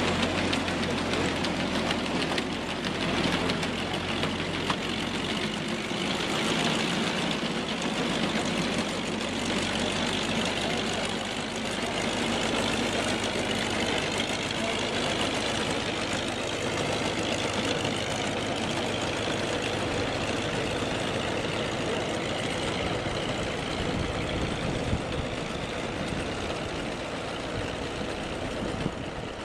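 Tucker Sno-Cat tracked snow vehicle driving on a gravel road, its engine running steadily while its steel tracks clatter over the ground.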